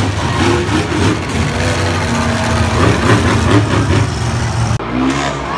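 Monster truck engines running, a loud, deep steady rumble that drops away suddenly near the end.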